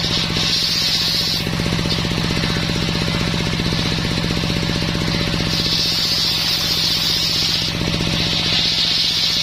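Engine-driven homemade circular sawmill running steadily with a fast, even low rhythm from its engine. Twice a higher hiss rises over it for a second or two, the blade cutting through dense coconut wood.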